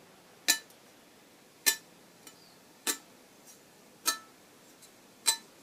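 Thumb drawn across a sharpened sickle edge, catching and making the steel blade give a short ringing tick, five times about a second apart. The catch and tick are the sign of a good, sharp edge.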